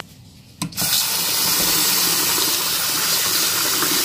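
Kitchen tap water starting about a second in and running steadily into a pot of uncooked white rice, a hand swirling the grains under the stream to rinse them.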